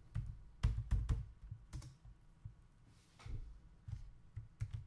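Typing on a computer keyboard: irregular keystrokes, a quick run of them about a second in, then a few scattered ones.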